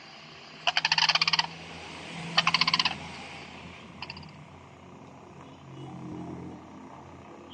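Recorded bird call played back through a talking-book reading pen's small speaker: two short, fast rattling bursts, each under a second, about a second and a half apart.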